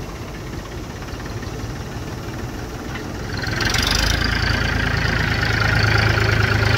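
Mahindra 265 DI tractor's three-cylinder diesel engine running, growing louder about three and a half seconds in and staying louder.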